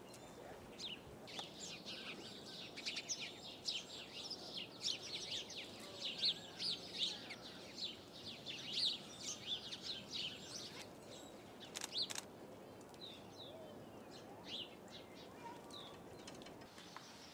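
Small birds chirping: a dense run of short, high chirps that thins out after about ten seconds, with two sharp clicks about twelve seconds in.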